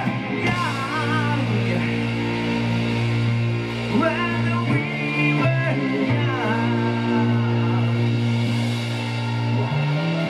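Live rock band playing: electric guitar, electric bass guitar and drum kit, with a singer's voice.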